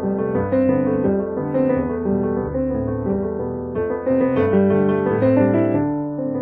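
Relaxation piano music: a solo piano playing slow, held notes and chords.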